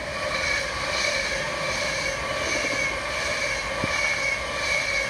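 Class 390 Pendolino electric train passing through the station at speed without stopping: a steady, loud rush of wheels on rail, with a few steady high-pitched tones over it.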